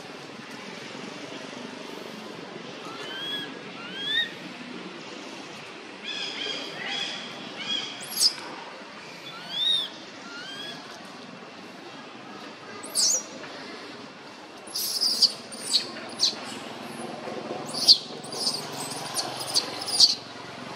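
Baby long-tailed macaque calling: short whimpering coos that rise and fall in pitch, then quicker, higher squeaks in the second half.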